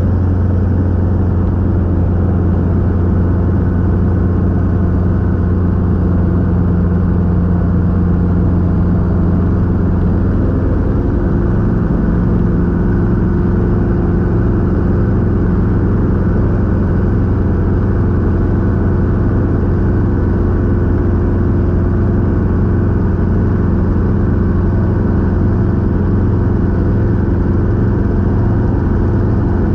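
Robinson R22 helicopter's piston engine and rotor running with a steady drone; about ten seconds in the pitch pattern shifts slightly, as with a change in power or rotor speed.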